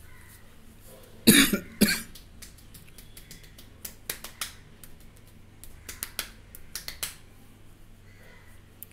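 Road work outside: two short loud bursts about a second in, then scattered sharp knocks and clicks for the next few seconds.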